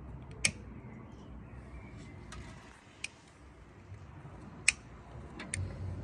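A handful of sharp clicks from a long-nosed utility lighter's igniter as firelighter cubes are lit in kindling, two of them loud: about half a second in and just before five seconds in. A steady low rumble of background noise runs under them.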